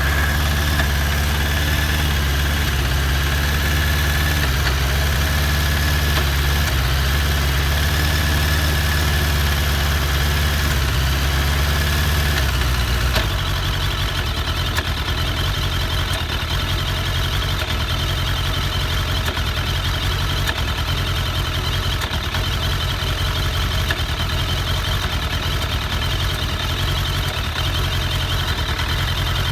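Suzuki Bandit 1200 inline-four engine idling, steady and even at first. About 13 seconds in the idle drops and goes rough and uneven, with popping and hissing. The owner takes this for cylinder 3 dropping out after a carburettor clean and sync.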